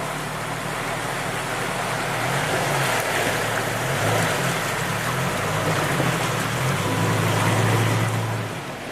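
Jeep engine running with revs rising and falling in steps, over a steady rush of water as it drives through a shallow creek. The engine hum is strongest shortly before the end, then drops away.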